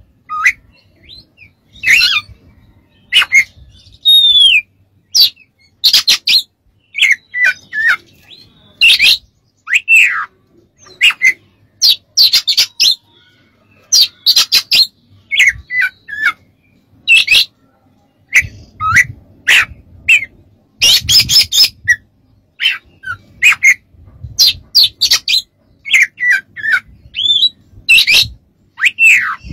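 Male Oriental magpie-robin (kacer) singing: loud, varied phrases of harsh chattering notes mixed with short whistles that slide down in pitch, with brief pauses between phrases.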